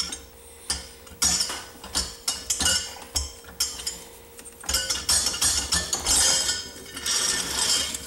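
Metal clinking and scraping as the cylinder block of a 1973 Honda CB450 engine is worked up its studs and lifted off the pistons. Short knocks are joined by two longer spells of rattling scrape, about a second in and again past the middle.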